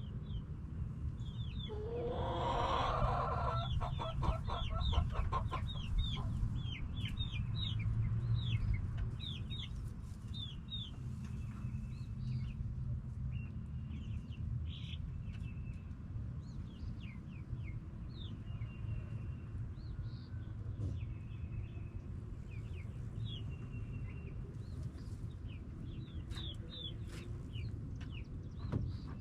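Backyard hens clucking, with one loud drawn-out squawk about two seconds in, over steady rapid high chirping and a low continuous rumble.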